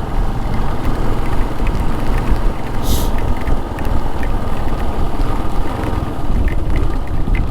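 Motorcycle running on the move, its engine under a heavy, steady rumble of wind and road noise on the camera microphone, with a short hiss about three seconds in.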